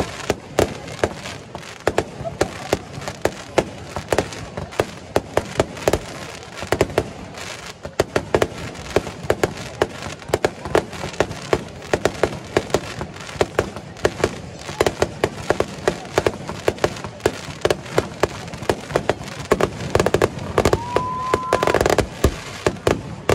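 Aerial fireworks shells bursting in quick succession, a dense run of bangs and crackles that does not let up. Near the end a short whistle rises and holds for about a second among the bursts.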